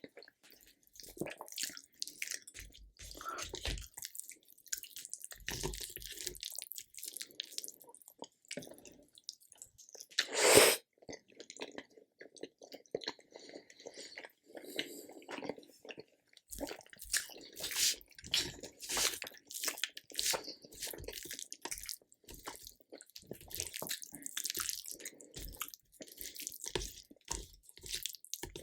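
A person chewing and biting food close to the microphone, a string of short irregular mouth and food noises, with one much louder sudden sound about ten seconds in.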